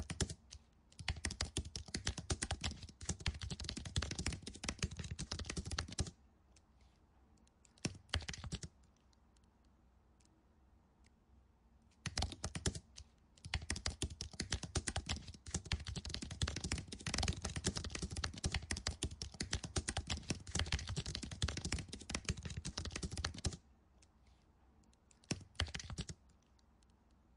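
Computer keyboard typing in fast runs of keystrokes, broken by pauses: a run of about five seconds early, a few short spurts, and a long run of about ten seconds in the second half.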